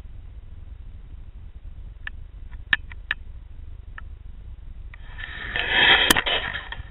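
Low steady hum through an underwater camera's microphone, with a few faint clicks. About five seconds in, a loud rush of water noise swells over it as the camera is moved through the water, with one sharp knock at its peak.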